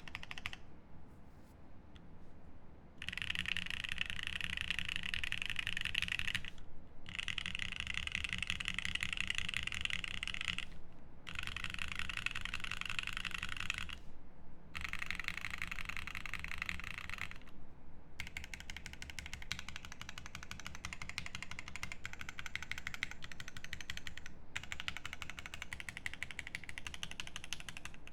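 Fast, continuous typing on a Vertigo mechanical keyboard with lubed Angel switches, a polycarbonate plate, tape mod and GMK keycaps: a dense rattle of keystrokes in runs of a few seconds, broken by brief pauses.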